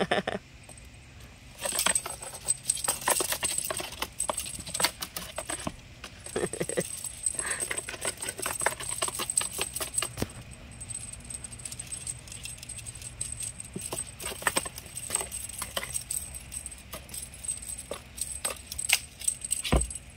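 Two kittens scuffling with a wand toy in a cardboard box: many quick clicks, scrapes and rustles of paws and claws on cardboard and concrete, with a thin high ringing that comes and goes.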